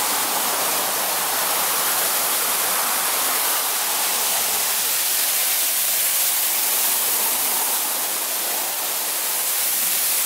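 Small waterfall pouring down a rock face into a pool: a steady, even rush of falling water, running full with snowmelt.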